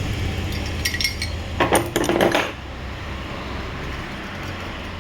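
Metal objects clinking and clattering, a couple of light clinks about a second in and a louder cluster around two seconds in, over a steady low hum that fades after the clatter.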